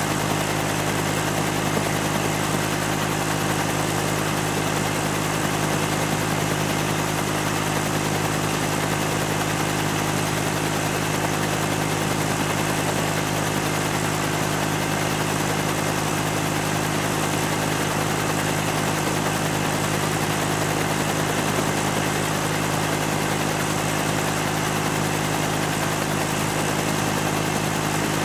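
Helicopter engine and rotor running with a steady, unchanging drone.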